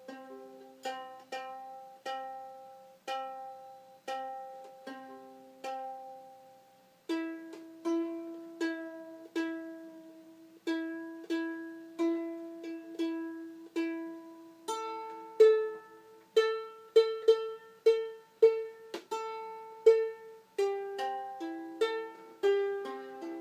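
Two 3D-printed ukuleles plucked one string at a time, about one or two notes a second: a reference note on the in-tune ukulele is matched against the same string on the out-of-tune one while its tuning peg is turned. The notes move to a new, higher string about 7 seconds in and again about 15 seconds in, as the strings are tuned one after another.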